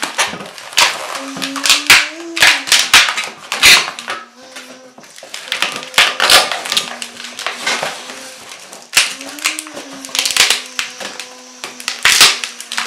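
Latex modelling balloon squeaking and creaking as it is rubbed and twisted into bubbles and pinch twists, in many short squeaks. A faint low held tone that shifts pitch now and then runs underneath.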